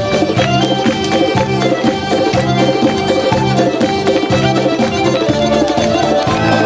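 Lively Caucasian folk dance music with a steady, driving beat about twice a second under a fast melody, accompanying a dagger dance.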